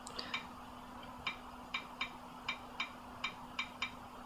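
Light clicks of typing on a tablet touchscreen keyboard: about a dozen quick taps at an uneven pace, a few near the start and a run of them in the second half, over a faint steady low hum.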